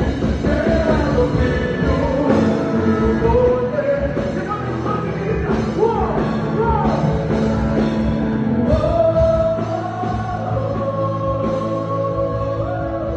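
Live worship music: a band playing with a man singing lead into a handheld microphone, his voice gliding up and down over sustained chords.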